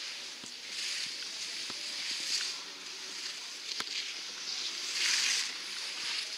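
Skis hissing and scraping over packed snow as a skier turns through moguls, swelling with each turn (about three times), with a few sharp clicks.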